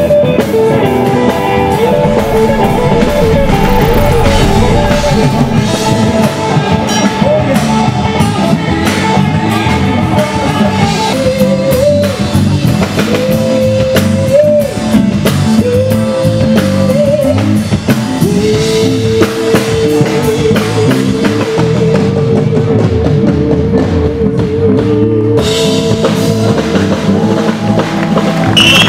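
Live rock band playing: drum kit and guitar under a melody line that includes one long note held with vibrato about two-thirds of the way through.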